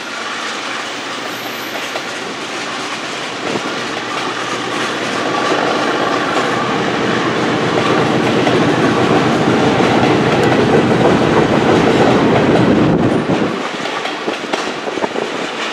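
Freight train of boxcars and covered hopper cars rolling past on a curve, its wheels running on the rails in a continuous rumble. It grows louder through the middle and drops off suddenly about two seconds before the end.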